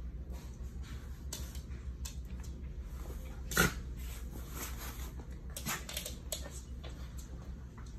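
A small dog gives one short bark about halfway through, during a play tussle over a blanket. Soft scuffling and rustling of the towel comes and goes around it.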